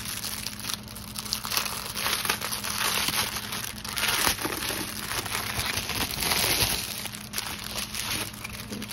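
Clear cellophane wrapping around a strip of sealed plastic packets of diamond painting drills crinkling in irregular bursts as hands turn it over and pick at the wrap. The bursts are loudest a little after the middle.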